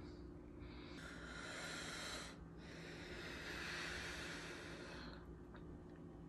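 A person breathing close to the microphone: two long, hissy breaths over a faint steady hum.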